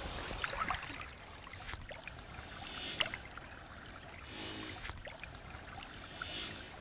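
Shallow creek water trickling and splashing, with small drips early on, then three swelling rushes of water noise, each lasting under a second.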